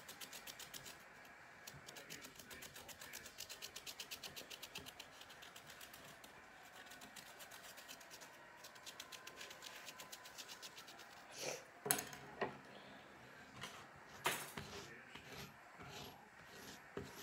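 Kinetic sand being rubbed and patted flat by hand on a plate: faint, quick, even scratchy strokes for the first several seconds, then a few sharper clicks against the plate in the second half.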